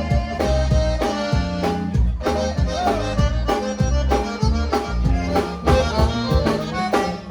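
Live conjunto band playing an instrumental passage: button accordion melody over a steady bass and drum beat. The music cuts off sharply near the end as the song finishes.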